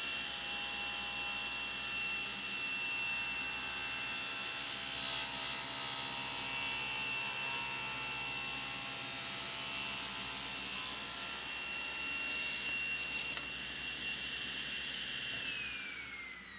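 Table saw running and ripping a taper along a mahogany table leg held in a tapering jig: a steady motor and blade whine. Near the end the saw is switched off and the whine falls in pitch as the blade spins down.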